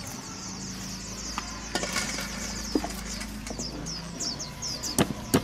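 Kitchen knife scoring a raw fish fillet on a banana leaf over concrete: quiet slicing strokes, with a few sharp knife taps against the hard surface, the loudest two near the end.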